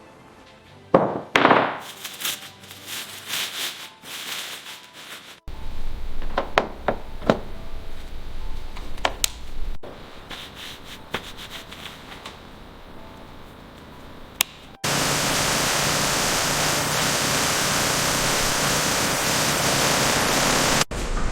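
Hand work on a car body: rubbing and scraping with sharp clicks and knocks, in several cut clips. About fifteen seconds in, a loud, steady spraying hiss starts abruptly and runs for about six seconds.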